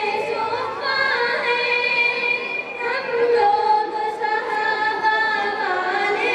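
Girls singing a tarana, an Islamic devotional song, together into microphones, with long held notes and gliding melody lines.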